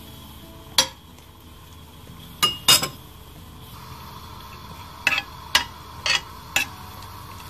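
Metal spoon clinking against a stainless steel pan while tomato paste is worked around in it: one clink about a second in, two close together around two and a half seconds, and four evenly spaced clinks between five and six and a half seconds.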